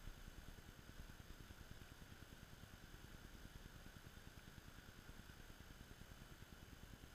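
Near silence: faint, steady background noise with a low rumble and no distinct sounds.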